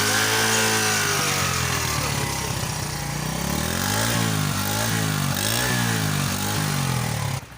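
Honda CD70 motorcycle's small single-cylinder four-stroke engine being revved: the pitch rises and falls once, then climbs and drops in four or five quick blips of the throttle. The engine sound cuts off abruptly near the end.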